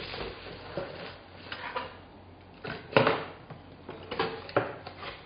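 Plastic wrapping crinkling and a cardboard box rustling as a wrapped glass French press is packed into its box and the flaps are folded shut. Several sharp knocks and clatters come through it, the loudest about three seconds in.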